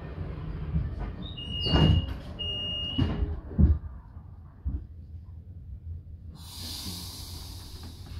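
Regional train's doors closing: two short high warning beeps with the sliding doors thudding shut, over the low rumble of the train. Near the end a hiss of air starts.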